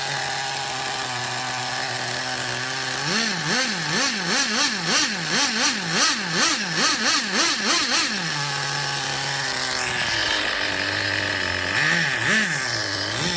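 DTX .18 nitro engine in an RC truck idling, then revved in quick throttle blips, about two or three a second for several seconds, before settling back to idle. Two more short blips come near the end.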